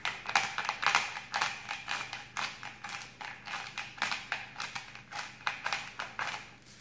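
Hand-twisted pepper mill grinding: a rapid, even run of short rasping grinds, about two to three a second.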